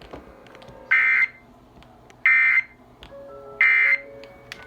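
Emergency Alert System end-of-message data bursts: three short, loud, harsh digital buzzes about a second apart, marking the end of the nationwide EAS test message.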